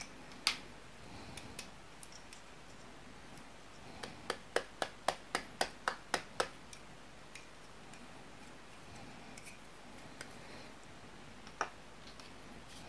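A run of about ten sharp clicks, roughly four a second, as the white plastic housing of a Furuno AU-117 GPS antenna is tapped and knocked about in the hands, with single clicks shortly before and near the end.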